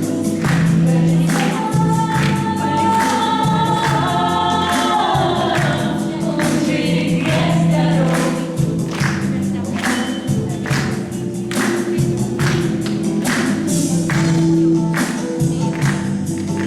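Background music: voices singing together over a steady beat of about two strokes a second.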